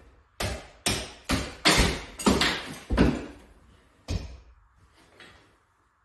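Chisel being struck to break old tiles loose, about seven sharp blows roughly two a second, then one faint knock.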